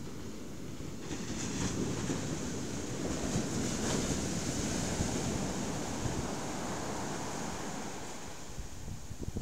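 Surf breaking and washing up a sandy beach in a rough sea. The rush builds about a second in, is loudest around four seconds in as a wave breaks, and eases off near the end, with wind buffeting the microphone.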